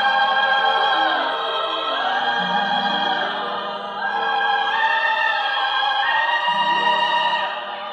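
Film score music: wordless operatic singing with a choir over orchestra, in long held notes that change pitch every second or two.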